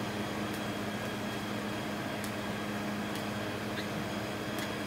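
Steady low hum with an even hiss from the room's air conditioning, with a few faint ticks.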